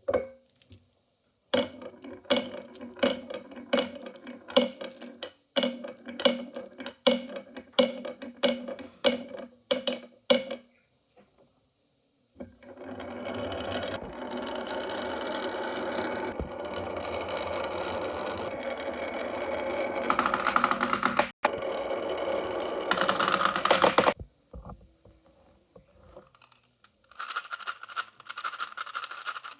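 Marbles rolling and clattering down a marble run. First comes a long string of quick clacks, then a steady rolling rumble that grows louder before cutting off, then a few more clacks near the end.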